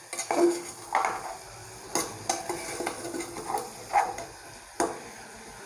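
A metal spatula stirring sweet corn in a steel saucepan, with irregular scrapes and clinks against the pan. Under them there is a faint sizzle of the corn roasting in butter and masala.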